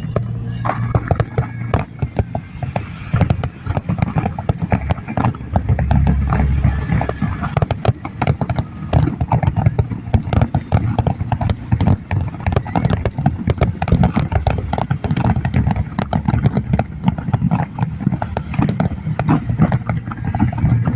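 Fireworks display: a rapid, unbroken run of bangs and crackles over a deep low rumble.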